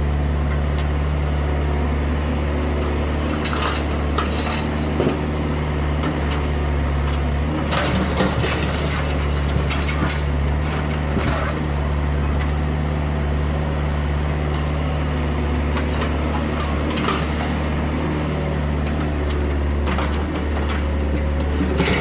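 Hydraulic excavator working on demolition: its diesel engine runs with a steady drone, while scattered metallic clanks and crunches of debris break in every few seconds.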